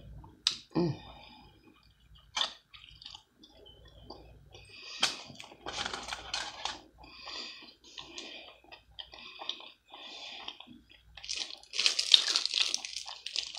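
Close-up chewing of a brisket taco in a soft flour tortilla with fried onions: wet mouth clicks and small crunches at irregular intervals. Near the end a louder crinkling rustle comes in.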